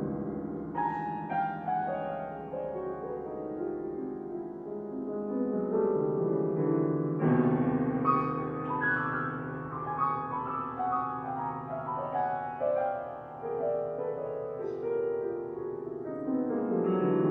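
Grand piano played slowly and freely: held chords with notes moving above them. A new, louder chord is struck about seven seconds in.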